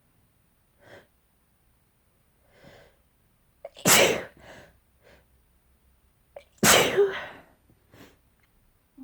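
A person sneezing twice in a fit, wet sneezes about three seconds apart near the middle, each loud and sudden with a quick breath drawn in just before it. Faint short breaths in between.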